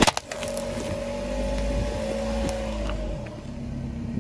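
A car tyre crushes a small plastic box of candy-coated chocolates with a sharp crack right at the start. After that the car's engine runs steadily with a low hum that dies down about three seconds in, with a couple of faint clicks.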